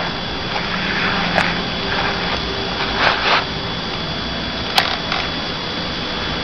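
Sheet of paper being handled and folded: a few crinkling rustles and sharp creasing clicks over a steady hiss.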